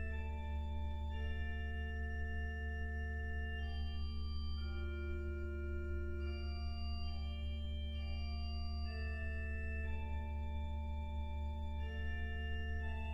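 Klais pipe organ playing a soft, slow passage: a deep pedal note held throughout beneath sustained upper notes that change every second or two.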